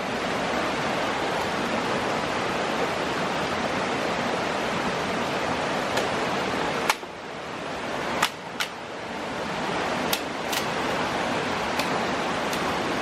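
Stream water rushing steadily, dipping briefly about seven seconds in and building back up. Several sharp clicks or knocks come in the second half.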